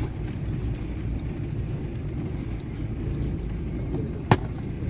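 Car running at low speed, a steady low rumble of engine and road, with a single sharp click about four seconds in.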